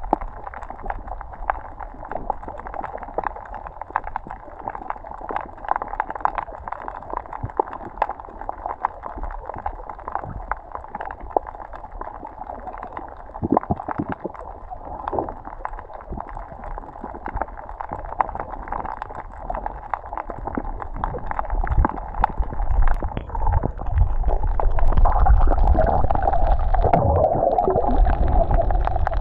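Muffled gurgling and crackling of water as heard from a camera under water, dulled with little treble. A low rumble of moving water grows louder over the last several seconds.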